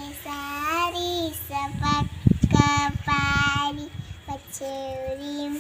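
A young girl singing on her own, holding each note steadily with short breaks between phrases. A few dull low bumps come through about two seconds in.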